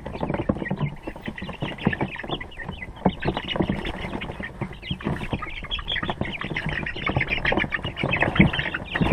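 Rhode Island Red chicks peeping continuously, many short high chirps overlapping one another, with scattered soft knocks and rustles beneath them.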